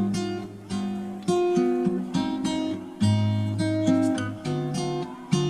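Background music: acoustic guitar, with notes and chords plucked and strummed in an unhurried rhythm, each one ringing and fading.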